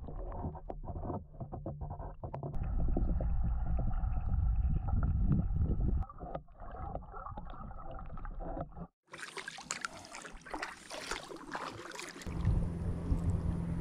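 Muffled underwater sound from a camera held under the river surface beside a kayak, with scattered faint clicks and bubbling. About nine seconds in, it cuts to open-air sound of kayak paddling with water splashing, and a low rumble of wind on the microphone near the end.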